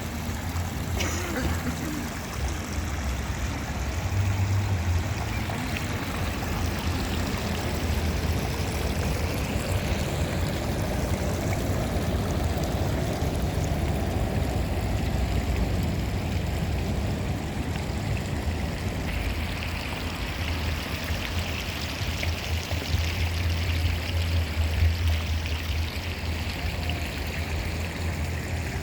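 Water in a stream running steadily, with a fluctuating low rumble underneath.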